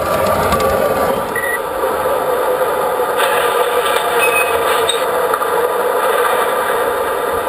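MTH model train running on its track: a steady rolling rumble of wheels and motor, with a few brief high squeaks.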